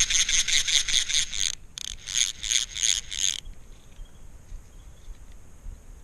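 Fly reel's clicker drag ratcheting as line is wound in, in quick even pulses of about six a second. It breaks off briefly under two seconds in and stops abruptly a little past three seconds.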